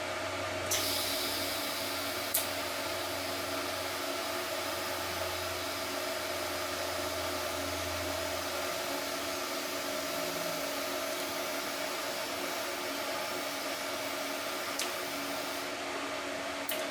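Arc welding: a steady hiss that starts about a second in, over a low hum that drops out about halfway.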